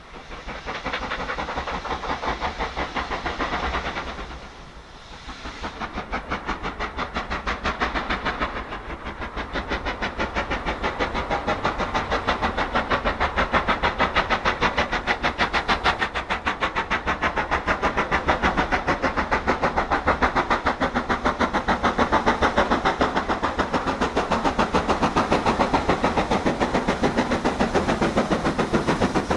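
LMS Black Five 4-6-0 steam locomotive working hard with a heavy train, its two-cylinder exhaust giving a rapid, even bark with a hiss of steam, growing louder as it approaches.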